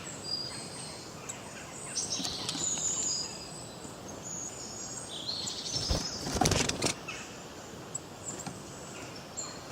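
Forest songbirds chirping and singing in short, high calls. About six seconds in there is a brief loud rustling burst lasting about a second.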